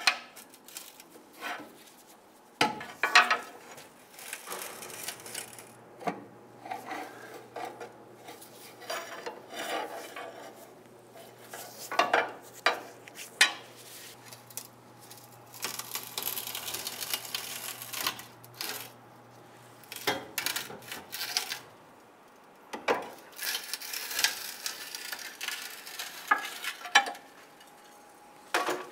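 Irregular metal clanks and knocks with scraping between them, from a pry bar working a rusted, stuck transmission crossmember bracket loose.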